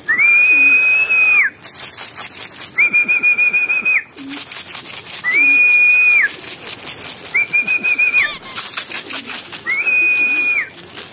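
Repeated long whistle calls used to call racing pigeons back into the loft: five whistles, each about a second long, holding one high pitch with a quick rise at the start and a drop at the end. Short rapid clicks come between the whistles.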